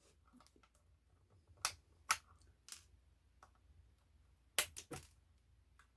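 Sharp, separate clicks and taps as the small wire body clips are worked off the posts of a 1/18-scale RC monster truck and its plastic shell is handled. There are a few single clicks, then a quick run of three about two-thirds of the way through.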